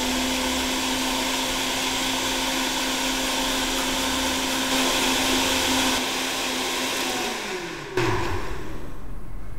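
Household blender running steadily on a jug of liquid, a loud motor whine with a churning rush. About seven and a half seconds in it is switched off and winds down, its pitch falling away.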